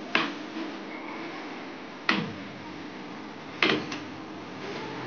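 A few sharp knocks, spaced a second and a half to two seconds apart, the third a quick double knock, over a steady low hiss.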